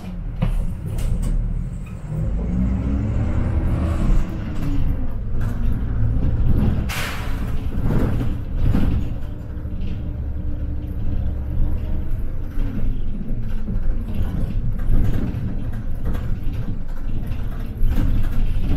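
City bus under way, its engine running with a pitch that rises and then falls a couple of seconds in, over a steady low rumble and rattles. A short hiss comes about seven seconds in.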